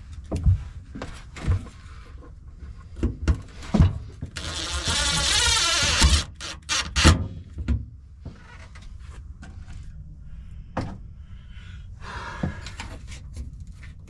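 Cordless impact driver running for about two seconds, driving a self-tapping screw to mount a switch panel in a pickup bed. Around it come several sharp knocks and clicks as parts and the tool are handled.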